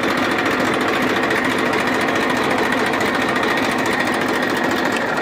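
Massey Ferguson 1035 DI tractor's three-cylinder diesel engine idling steadily, a fast even knock with a faint steady high whine over it.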